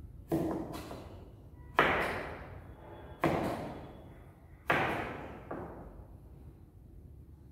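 Kitchen knife chopping down onto a plastic cutting board in slow single strokes: four loud knocks about a second and a half apart, each dying away over about a second, with a couple of lighter taps between.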